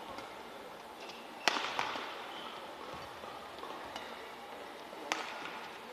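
Badminton rally: sharp cracks of racket strings striking the shuttlecock, the loudest about a second and a half in and another near the end, with short squeaks of court shoes between, over a steady hall hum.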